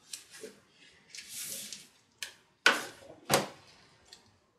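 Plant pots and saucers being handled and set down: a short rustle, then three sharp knocks about half a second apart.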